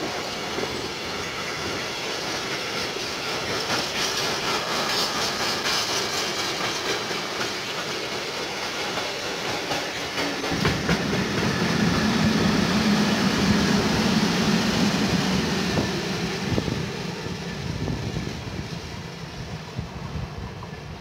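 Long freight train of covered goods wagons rolling past on the rails, wheels clicking over the track. About halfway through the sound grows louder and deeper, then fades as the last wagons go away.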